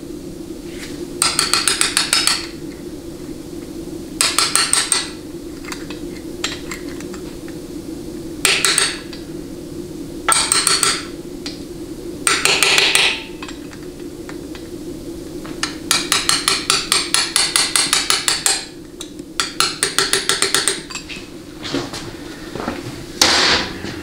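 A small hammer lightly tapping a drift punch, metal on metal, to seat the case filter screens into a 700R4 automatic transmission's aluminium case. The taps come in about eight short bursts of quick strokes, with pauses between.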